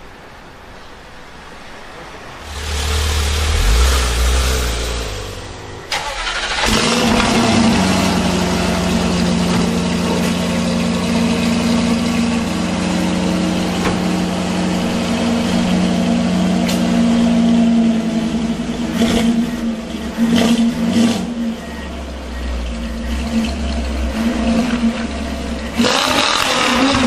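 Sports car engine: a loud low rev a few seconds in, then steady idling with a few short throttle blips, and another loud rev near the end.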